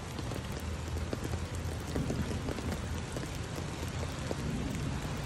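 Steady rain falling on pavement, an even hiss dotted with many small drop ticks, over a low steady rumble.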